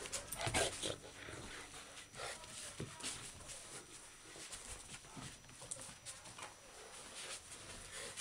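A St. Bernard and a miniature dachshund puppy at rough play over a stuffed toy: a string of short dog noises and scuffles, loudest in the first second.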